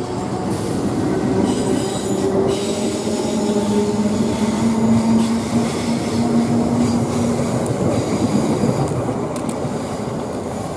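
Electric multiple-unit passenger train running past along the platform, with steady electric motor tones over continuous wheel and rail noise.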